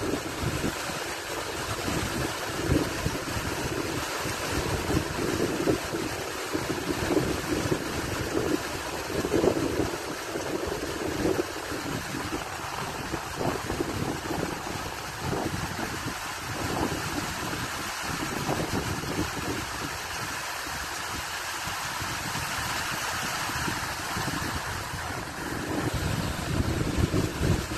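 Fast-flowing water rushing and churning into whitewater, a steady rush with uneven low gusts of wind buffeting the microphone.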